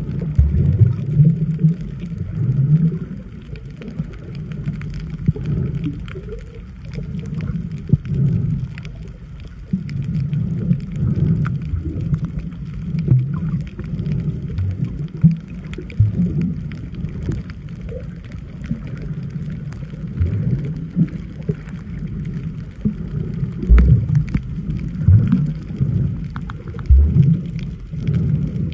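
Muffled underwater sound of water moving around a submerged camera: a low, uneven rumbling and sloshing with irregular thumps, and faint clicks and crackles above it.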